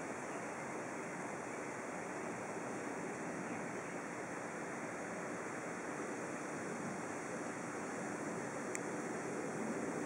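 Steady outdoor rushing background noise, even and unbroken, with no distinct event standing out.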